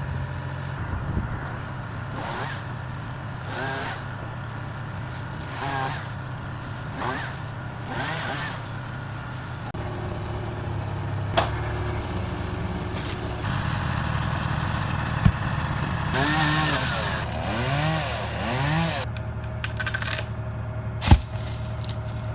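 A chainsaw revving in short bursts every second or so, its pitch rising and falling, over the steady running of the boom truck's engine. There are a few sharp knocks, the loudest near the end.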